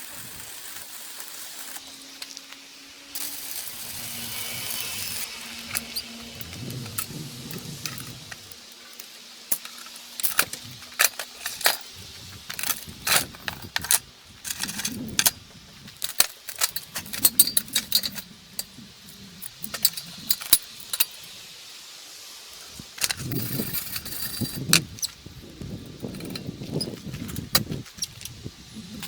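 Irregular clinks, taps and knocks of metal parts and hand tools being handled, with some low rumbling between them.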